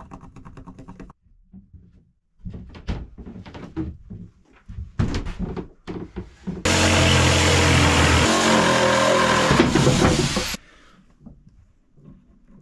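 Knocks and clatter of a wooden pew board being handled, then a power saw runs for about four seconds, cutting the pew to length, and stops abruptly.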